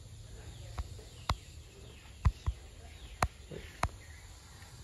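A run of sharp clicks at uneven intervals, the loudest a close pair about two seconds in, over a faint outdoor background with bird chirps.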